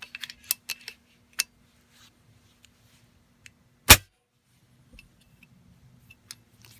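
A few sharp clicks, then a single loud shot from an FX Impact .30 PCP air rifle about four seconds in: the test-fire after reassembly, and the rifle fires.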